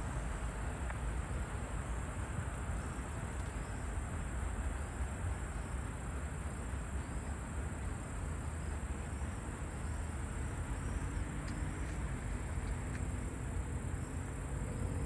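Crickets chirring steadily in a high, even band over a constant low rumble. A faint low hum comes in during the last few seconds and slowly rises in pitch.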